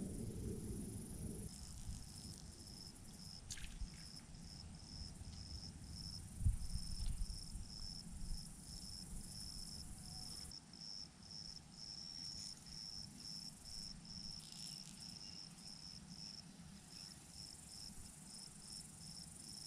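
An insect chirping faintly in an even, high-pitched rhythm, about three chirps a second, with a steady high hiss that stops about halfway and a single low thump about six seconds in.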